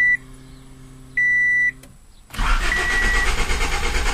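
A quiet steady hum and a short beep of the car's warning chime about a second in, then the 1986 Honda Prelude's starter cranks the engine steadily without it catching, with the chime still beeping over it. This is a hot-restart no-start: the engine will not fire after sitting four to five minutes warm, though it starts right away just after shut-off or after an hour's rest.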